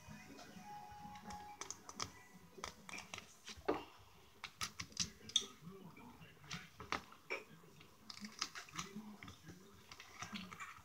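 Scattered clicks and taps of a metal spoon against a halved horned melon (kiwano) as its seedy pulp is scooped out.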